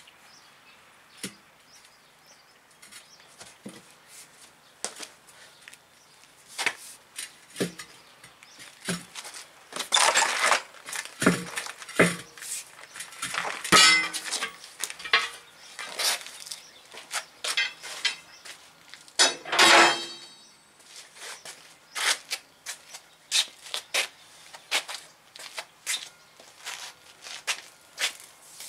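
Steel tire irons clinking, knocking and scraping against a steel truck wheel as the tire bead is levered over the rim flange. Sharp metal clicks run throughout, with louder bursts of scraping about a third of the way in, around the middle, and about two thirds in.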